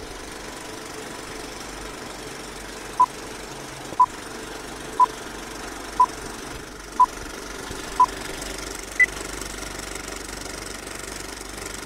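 Old-film projector sound effect: a steady mechanical clatter and hiss. Over it come six short beeps one second apart and then a single higher beep a second later, like a countdown.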